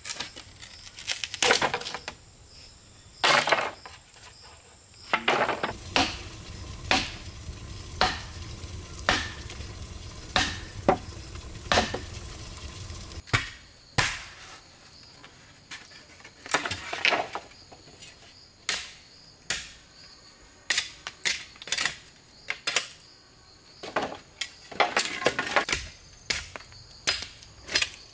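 Bamboo being worked by hand with a machete: sharp, irregular knocks and cracks of the blade chopping the poles, and the hollow clatter of poles being handled and set down, with faint steady insect trilling behind.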